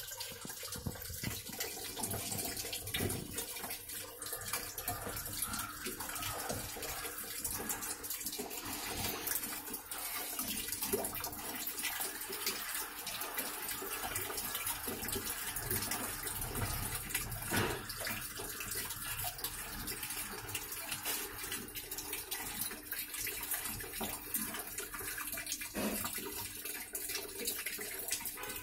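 Water pouring steadily into the tub of a top-load washing machine as it fills, with a faint steady hum underneath.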